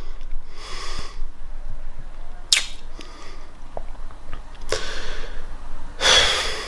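Heavy, noisy breathing of a man with a sinus infection and blocked nose: four short breaths or sniffs, the loudest near the end.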